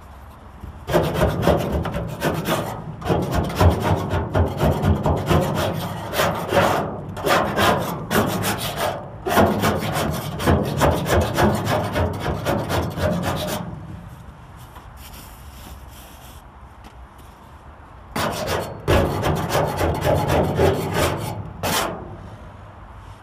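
A hand scraper scraping old sound-deadening material and glue off the bare steel roof panel inside a Chevrolet Caprice, in quick back-and-forth strokes. There is a long spell of scraping, a pause of about four seconds, then a shorter spell near the end.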